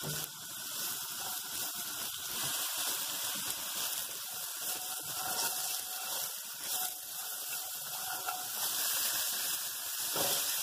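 Sliced fresh mushrooms and cashews sizzling in hot oil in a nonstick frying pan as they are stir-fried, a steady hiss. About ten seconds in, a handful of sliced celery is dropped into the pan.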